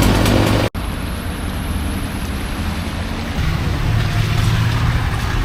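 Vehicle engines and tyres on a flooded street, a steady low rumble with a wash of water noise. An abrupt cut just under a second in, after which it runs on a little quieter.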